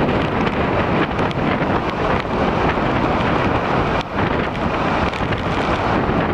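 Strong storm wind buffeting the microphone: a loud, steady rushing noise with a brief dip about four seconds in.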